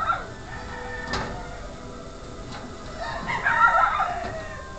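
A rooster crowing about three seconds in, with a few light clicks and knocks.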